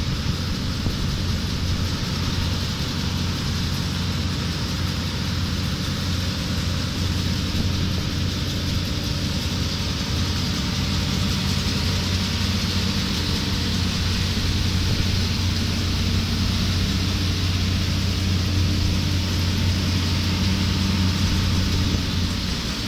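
Engines of a tractor and a Sambo Rosenlew 410 combine harvester running steadily: a low, even engine hum under a broad rushing machine noise, swelling slightly in the second half.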